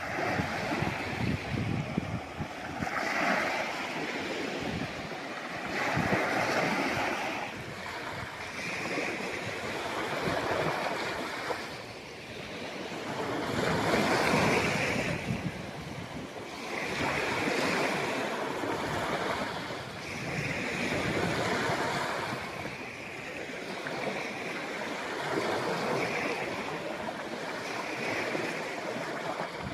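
Sea waves breaking and washing on the shore, surging and falling back every few seconds, with the biggest wave about halfway through.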